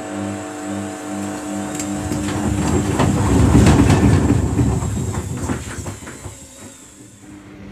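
Samsung front-loading washing machine running with water in the drum: a pulsing motor hum, then the drum turns and the wash rumbles and knocks, loudest around the middle before it eases off.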